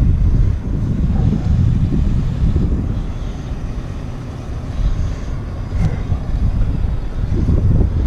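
Wind buffeting the microphone: a loud, uneven low rumble that swells and eases, with one sharp click about six seconds in.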